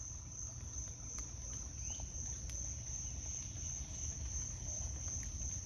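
A chorus of insects trilling on one steady high pitch without a break, over a low rumble. A faint short rising chirp comes about two seconds in.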